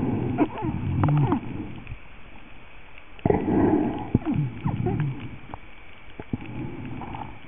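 Muffled voice-like sounds heard through water by an underwater camera: low sliding, moaning tones in two main bursts, over a faint steady high whine.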